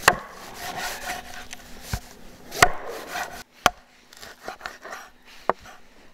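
Meat cleaver chopping raw chicken on a wooden cutting board: about five sharp chops at irregular intervals, each a knock of the blade through the meat into the wood, with softer rustling as the pieces are handled between strokes.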